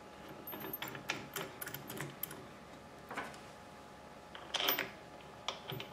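Light, irregular metallic clicks and taps of a motorcycle brake caliper and its steel mounting bolts being handled and started in by hand. A few louder clicks come a little past halfway.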